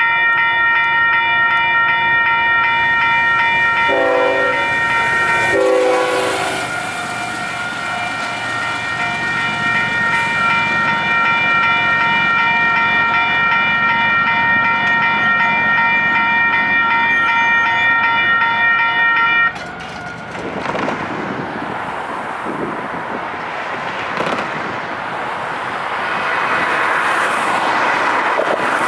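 Railroad grade crossing warning bell ringing steadily while a train's horn sounds in several blasts during the first six seconds or so. About two-thirds of the way through, the bell cuts off abruptly and a train rolls past, its wheels clattering over the rails.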